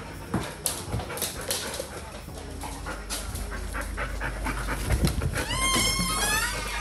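Dogs' claws clicking on a wooden floor, with panting, then from about five and a half seconds in a dog whining in a high, wavering voice, eager to be let into the room.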